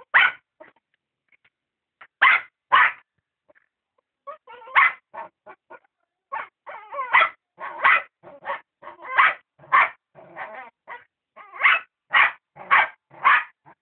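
A dog barking again and again in short barks: two near the start, then after a pause of about a second and a half a long, almost unbroken run at roughly two barks a second.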